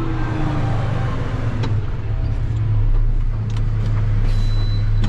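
Heavy delivery truck's engine running steadily, a deep drone, with a few light clicks while the truck is maneuvered through a tight turn.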